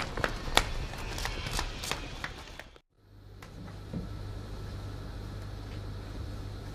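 Irregular sharp clicks and knocks over background noise, cutting off briefly about three seconds in; then a steady low hum with faint hiss, with a soft knock or two.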